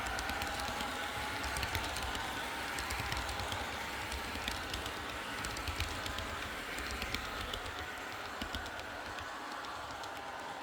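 Model railway train rolling along the track, its wheels making many small irregular clicks over rail joints above a low rumble, gradually getting quieter.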